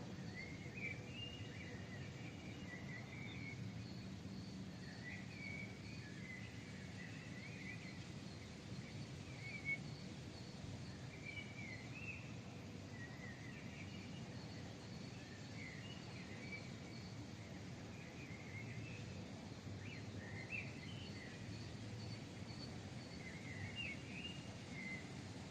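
Small songbirds singing short, chirpy warbling phrases every few seconds, with a thin high note repeating several times a second, over the steady low hum of a distant city.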